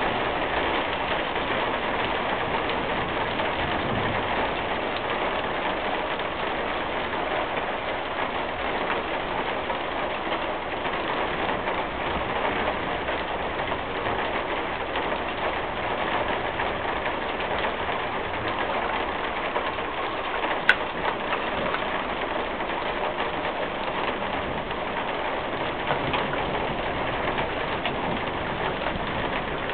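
Steady rain falling as a thunderstorm ends, an even hiss, with one sharp tap about two-thirds of the way through.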